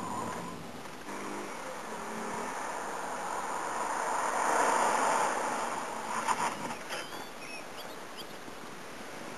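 A Mercedes-Benz sedan driving past through a cone course, its rushing road and engine noise swelling to a peak about halfway through and then fading. A few light clicks follow soon after.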